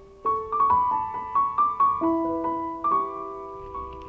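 Background solo piano music: a melody of struck notes, several a second, ringing over lingering lower notes.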